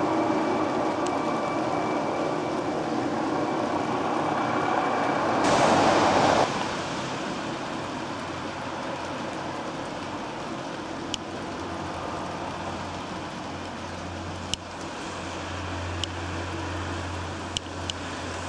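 Police helicopter circling overhead, its rotor and turbine drone steady, louder over the first few seconds with a faint high whine. A brief loud rush of noise comes about six seconds in. After that the drone is quieter, with a low hum that swells again near the end, and a few sharp clicks late on.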